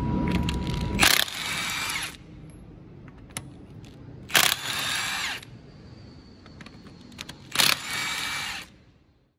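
Impact wrench spinning off wheel lug nuts, three bursts of about a second each, a few seconds apart.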